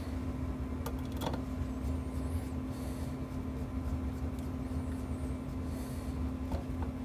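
A steady low hum with a constant tone, and a few light clicks of a screwdriver working on a part inside an amplifier chassis, about a second in and again near the end.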